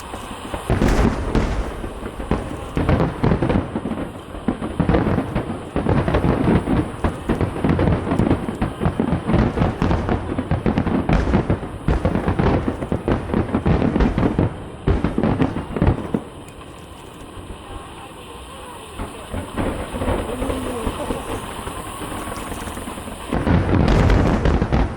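Aerial fireworks shells bursting in a dense, overlapping barrage of booms. The barrage eases about sixteen seconds in, then a fresh loud volley of bursts comes near the end.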